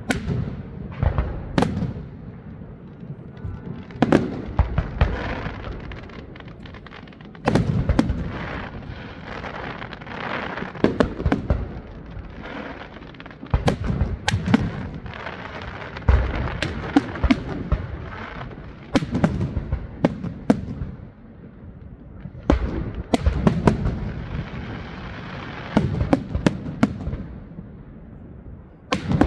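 Aerial fireworks display: shells bursting with sharp bangs that come in clusters every few seconds, with crackling between the bangs.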